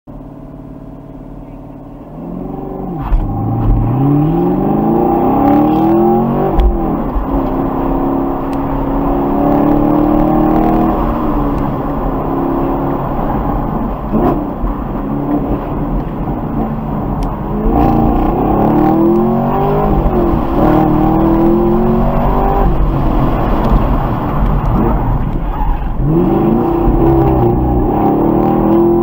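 2023 Chevrolet Camaro SS 1LE's 6.2-litre V8 idling at the start, then revving hard about two seconds in as the car launches. The engine note climbs steeply again and again as the car accelerates, lifts and accelerates between corners on an autocross run, with steadier stretches in between. It is heard from inside the car.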